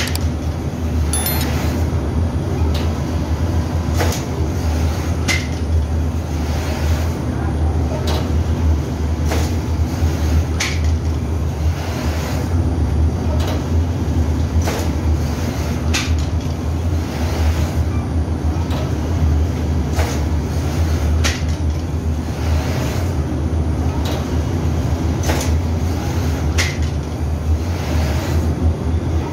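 Automatic flatbread machine running with a steady low hum, and a sharp clack about three times every four seconds as the cutting head stamps each piece of bread dough from the sheet.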